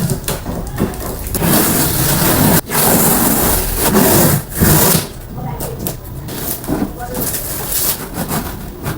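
Plastic packaging rustling and crinkling as a treadmill is unwrapped and handled, with a sharp knock a little over two seconds in.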